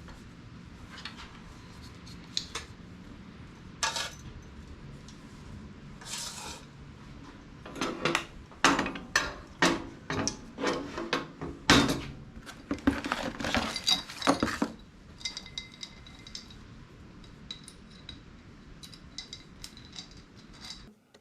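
Hard objects clinking and clattering as they are handled: a few scattered clicks at first, then a busy run of clinks in the middle, which thins out toward the end.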